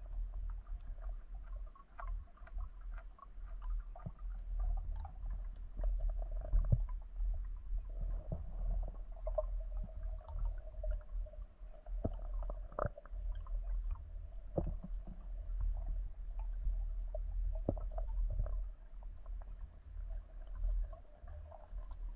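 Muffled underwater audio from a camera housing while spearfishing: a steady low rumble with scattered clicks and knocks and a faint steady hum.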